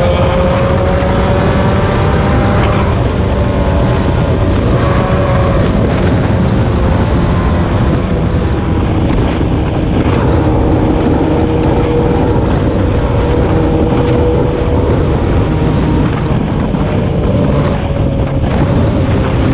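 Motor vehicle running steadily at road speed, its engine note drifting slightly up and down under heavy wind noise on the microphone.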